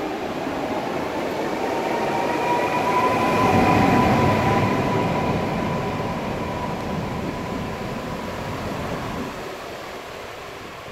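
Newag Impuls ED78 electric multiple unit pulling out and drawing away, its traction motors giving a steady whine over the rumble of the wheels. The whine swells for the first few seconds, then fades as the train recedes.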